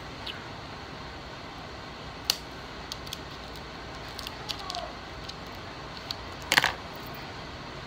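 Small scissors snipping through a cooked crab leg's shell: a few sharp clicks and crunches, the loudest cluster near the end, over a steady background hiss.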